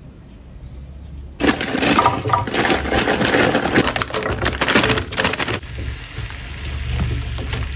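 Raw potato sticks dropped into hot oil in a small square frying pan, sizzling and crackling. The sizzle starts suddenly about a second and a half in, is loud for about four seconds, then drops to a quieter steady sizzle.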